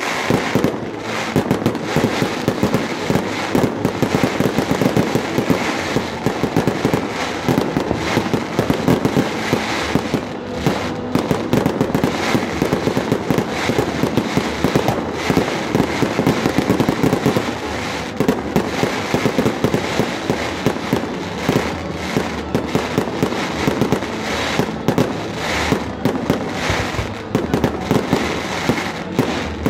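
Fireworks display: a dense, continuous barrage of bangs and crackling shells with no let-up.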